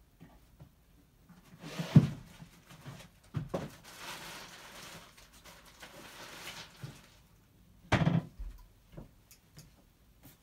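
Someone rummaging off-camera for a pair of pliers: a sharp knock about two seconds in, a few seconds of rustling and rummaging noise, then another knock about eight seconds in.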